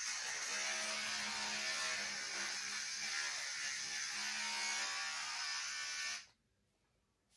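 Electric hair clippers buzzing steadily while being run through the hair, then switched off about six seconds in.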